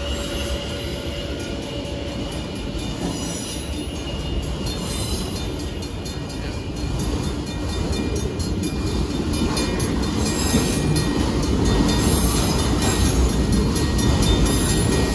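Freight train of enclosed autorack cars rolling past fast, its steel wheels rumbling on the rails. It grows louder about halfway through.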